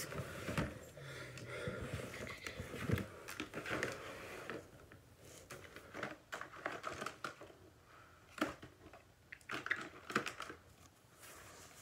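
Irregular rustling, crinkling and light clicks of small objects being handled and rummaged through, quieter for a few seconds in the middle.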